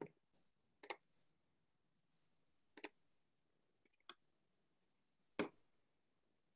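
Five faint, sharp computer mouse clicks spaced one to two seconds apart over near silence, the loudest near the end, made while starting a screen share and a slideshow.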